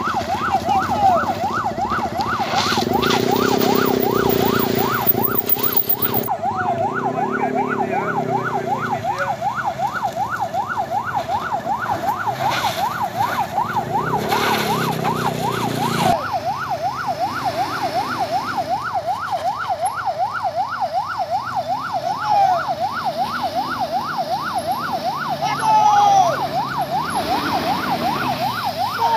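Electronic siren sounding continuously in a rapid rising-and-falling yelp, over the low running of vehicle engines.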